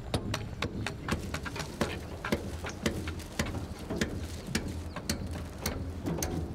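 Hand tools knocking and tapping at tomb construction: rapid, irregular sharp clicks and knocks, several a second, over a low steady hum.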